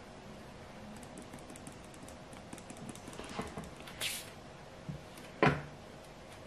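Flour and cocoa powder sifted through a stainless-steel mesh sieve into a glass bowl: a faint patter of fine ticks as the sieve is shaken, a short hiss a little past the middle, then one sharp knock near the end, the loudest sound.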